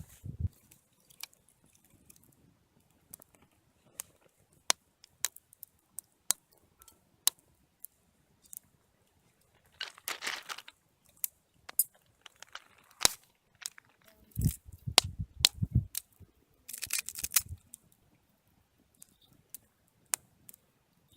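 Scattered sharp crackles and pops, with two short bursts of crinkling around the middle and later, and a few low thumps in between.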